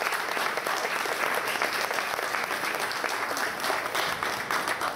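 A large audience applauding, a dense steady clapping of many hands.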